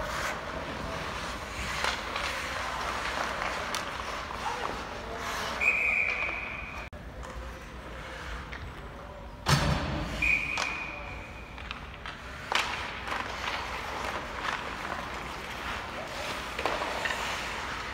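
Hockey game sounds: two referee whistle blasts, each a steady high note just over a second long, with a loud sharp bang in between and scattered clicks of sticks and puck over distant voices.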